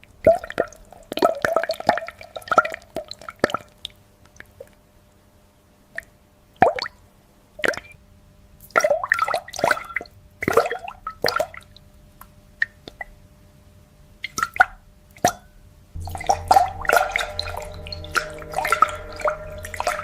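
Liquid dripping and plopping in irregular drops, each drop a short sharp plink. A steady low hum comes in near the end.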